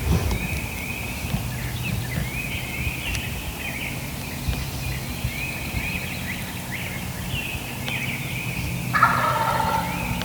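A wild turkey gobbler gobbles once, a rapid rattling call about a second long, near the end. Songbirds repeat short high phrases throughout.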